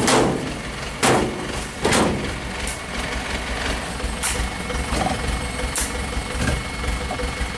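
Small dump truck's engine running at low speed as it creeps over a rough dirt track, with several loud clunks about a second apart in the first few seconds.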